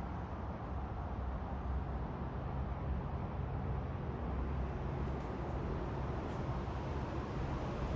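A steady low rumble with a constant hum underneath, unchanging throughout.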